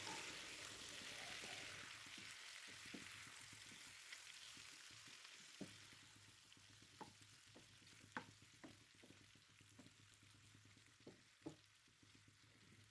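Faint sizzling of a frying pan of curry just after chopped tomatoes go in, dying away over the first several seconds, followed by a few scattered light clicks and pops.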